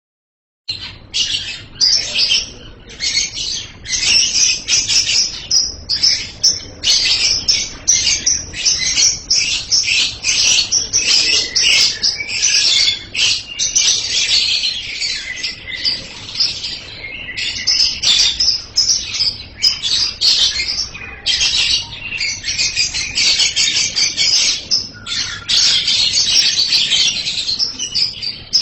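Lovebird singing loud and shrill: long, unbroken runs of rapid high chirping and chattering, with short pauses every few seconds.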